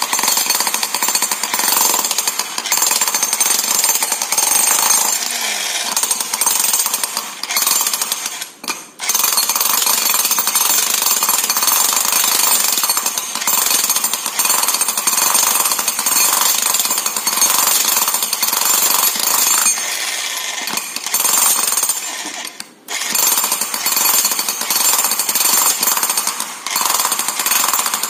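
16 kg electric demolition hammer (PH 65 H type) running, its pointed chisel bit pounding into a stone block and splitting it into chunks. It makes a dense, loud hammering noise that stops briefly twice, about a third of the way in and again about four-fifths through.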